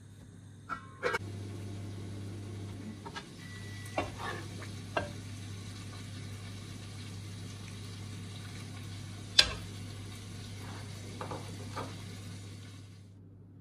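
Lamb and spinach curry sizzling in a frying pan while a metal spoon stirs and scoops it, with a few sharp clinks of the spoon, the loudest about nine seconds in. A steady low hum runs beneath.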